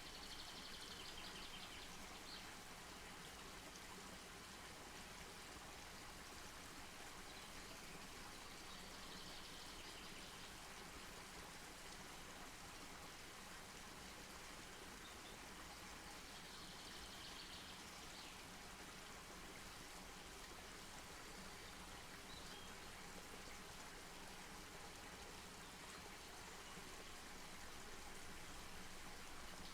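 Faint, steady outdoor ambience with a hiss like distant running water, and a short high-pitched trill recurring about four times.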